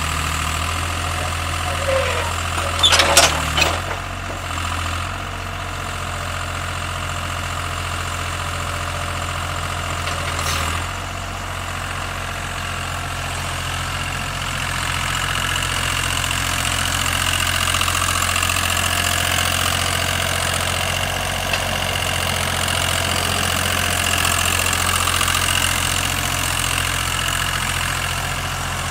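Mini excavator's diesel engine running steadily at idle, with a short cluster of sharp knocks and squeaks about three seconds in and another single knock about ten seconds in.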